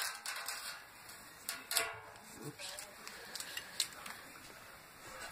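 Masking tape caked with spray paint being peeled off a painted mower panel: irregular crackling and rustling with a few sharp clicks, the sharpest about a second and a half in.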